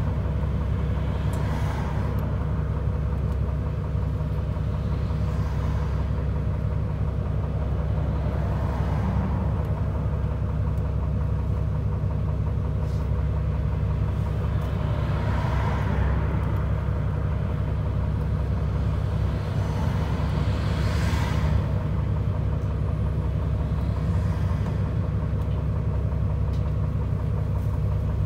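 Isuzu Erga city bus's diesel engine idling steadily while the bus stands still, heard from inside the cabin. Other vehicles swell past outside several times.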